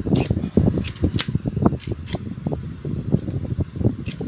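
Metal parts of a homemade airgun being handled and worked on: irregular sharp clicks and knocks, several a second, over a steady low rumble.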